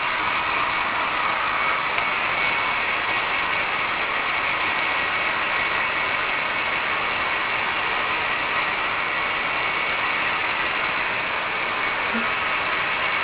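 Electric hair dryer switched on and running steadily: an even rush of blown air with a faint high whine.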